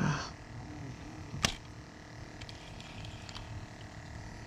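Spinning rod and reel being handled: a short rustling swish at the start, one sharp click about a second and a half in, then a few faint ticks.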